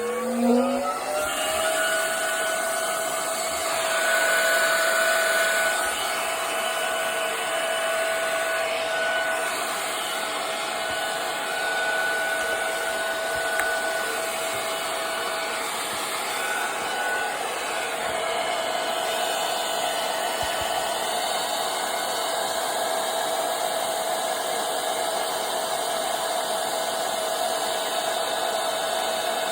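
Small electric air compressor spinning up, its pitch rising over the first second or so. It then runs steadily with a high, even whine and a rushing hiss.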